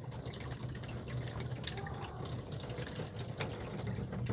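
Water draining out of a Rinnai tankless water heater's opened drain port, a steady splashing flow with small drips, over a low steady hum.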